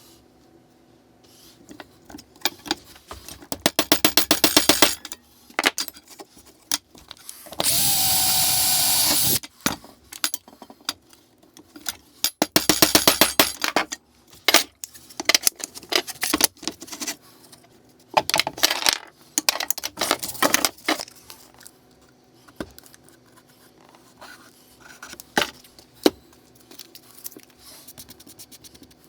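A power drill runs for about two seconds near the middle, drilling through mild steel flat bar. Around it are two bursts of rapid knocking and then a run of single sharp hammer taps driving M4 spring pins into the bar.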